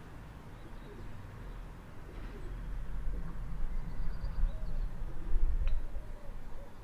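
Outdoor ambience: a low rumble that swells through the middle and eases near the end, with faint bird calls over it.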